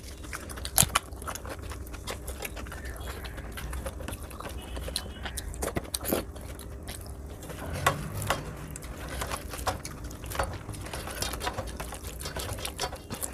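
Close-miked wet chewing and mouth sounds of someone eating rice and dal by hand, with scattered sharp lip smacks and clicks, and the squish of fingers mixing food on a steel plate.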